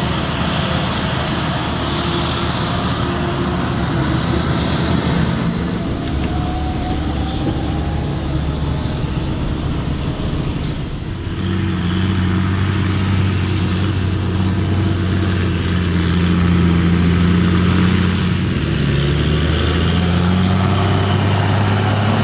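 Claas Jaguar 940 forage harvester running under load as it chops standing maize, a dense, steady machine noise. About halfway through, the sound gives way to a Fendt tractor hauling a loaded silage trailer, a steady, deeper engine drone that grows slightly louder toward the end.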